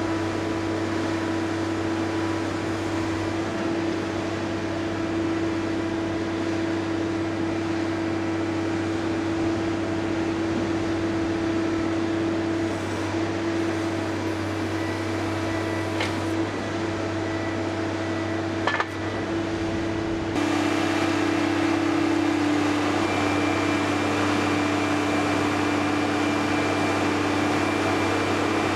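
Cummins 5.9-litre six-cylinder diesel of a Sierra RB5000 logger baler running, a steady drone with a steady whine over it. Two short clicks come about two-thirds of the way through. Soon after, it gets a little louder and its note dips slightly for a few seconds.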